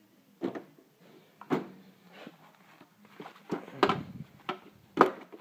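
Metal wrenches clinking and knocking against each other and the steel drawer as they are handled, a run of sharp, irregular knocks.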